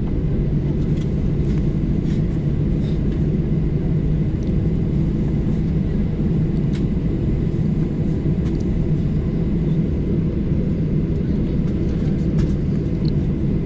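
Steady low rumble inside the cabin of a Boeing 737-800, heard from a passenger seat: engine and airframe noise holding an even level, with a few faint ticks.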